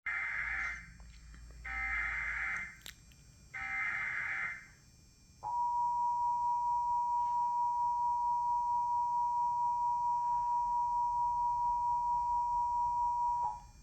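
Emergency Alert System Required Monthly Test. Three short bursts of SAME digital header data, then the EAS two-tone attention signal (853 and 960 Hz together) held steady for about eight seconds and cutting off sharply.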